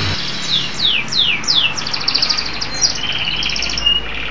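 Domestic canary singing: four quick falling whistles, then fast rolling trills, ending in a lower buzzy trill.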